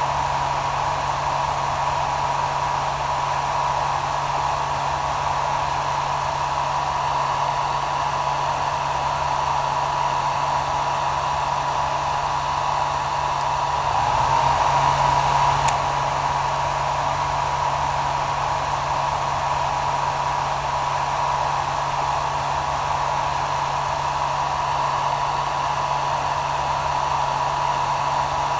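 Hair dryer running steadily: an even hiss of blown air with a constant tone and a low hum, briefly a little louder about halfway through.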